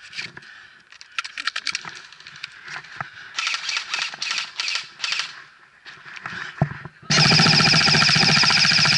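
Spruce branches and forest floor rustling as a player moves through cut brush, with a quick run of sharp clicks and a single sharp click. About seven seconds in, a loud, perfectly steady buzzing tone cuts in abruptly and holds.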